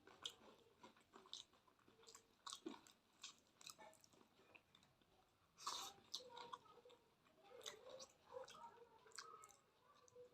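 A person chewing malpua, the fried sweet pancake, with quiet, irregular mouth clicks.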